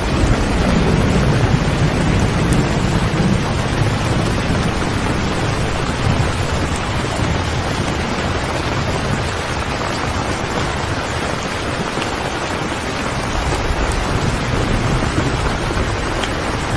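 Steady, fairly loud rain, an even hiss of falling water, with a low rumble swelling up under it in the first few seconds and again near the end.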